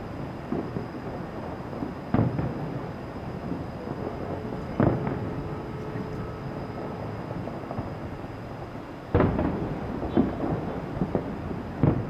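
Distant aerial firework shells bursting: about five sharp booms, each trailing off in a rumble, over a continuous low rumble from the display.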